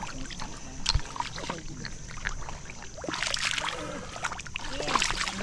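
Footsteps squelching and sloshing through soft wet mud and shallow water, with splashier steps about three seconds in and again near the end.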